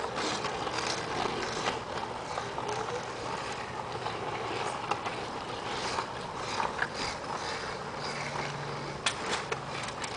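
RipStik caster boards' polyurethane wheels rolling over asphalt: a steady rolling rumble with scattered sharp clicks and knocks from the boards.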